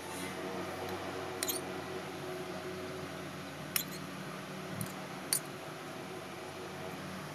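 A small metal spoon clinking against stainless-steel bowls while scooping corn kernels: three light, sharp clinks spread over a few seconds, over a low steady hum.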